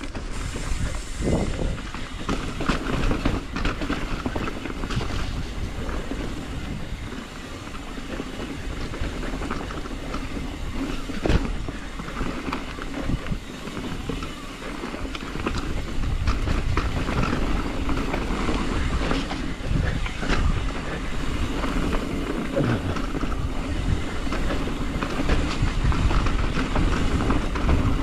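Hardtail mountain bike rolling down a dirt singletrack trail: steady tyre noise, with frequent short knocks and rattles from the bike over bumps and roots.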